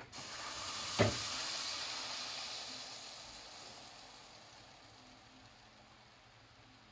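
Blended mole sauce poured into hot oil, sizzling at once and dying down over several seconds as the sauce cools the oil. A single knock about a second in.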